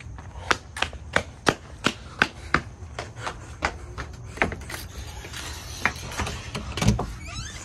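Quick footsteps on a hard surface, about three sharp steps a second, as someone hurries along carrying the camera.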